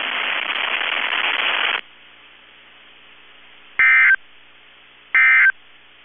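Streamed NOAA Weather Radio audio: about two seconds of static hiss, then two short warbling digital data bursts about a second and a half apart. These are SAME end-of-message bursts closing the Required Weekly Test.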